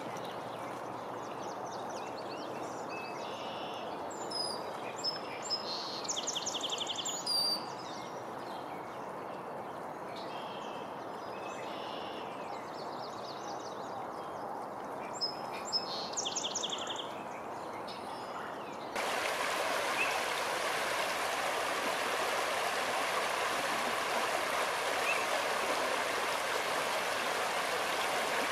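Shallow river flowing over a stony bed, a steady rush of water, with birds calling and giving quick trills in two bursts during the first half. About two-thirds of the way through, the water sound jumps louder and brighter, water running over rocks.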